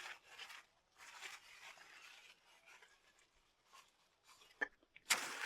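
Faint rustling and scratching of leaves and stems being handled, in short bursts with quiet gaps; a louder, steady rustle starts near the end.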